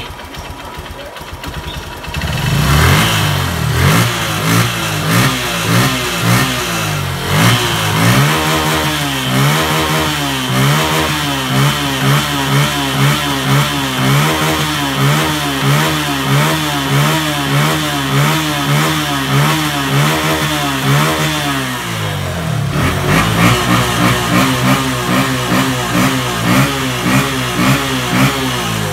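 Honda Verza 150's air-cooled single-cylinder engine idling after a piston replacement, its pitch and loudness swaying up and down about every two-thirds of a second. This is an uneven idle that is set rather high and runs rather rough, and it has not yet been adjusted. It gets louder about two seconds in.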